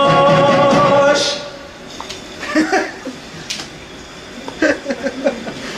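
A man's singing voice holds a long note that ends about a second in, followed by quieter short bits of speech and a chuckle with a few faint clicks.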